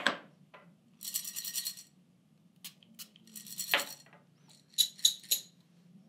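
Whole coffee beans rattling in a small stainless steel dosing cup in two short spells, then a few sharp metallic clinks near the end.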